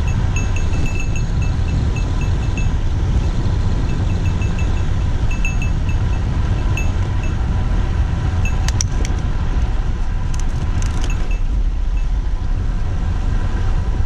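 Wind buffeting the microphone of a bicycle riding along an asphalt road: a steady, loud low rumble. Over it come small metallic tinkling pings at one pitch, several a second, that come and go with the road surface, and a few sharp clinks around the middle.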